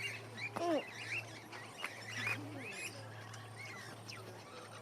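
Mixed aviary birds chirping and calling, with short high chirps throughout and one louder falling call about half a second in, over a steady low hum.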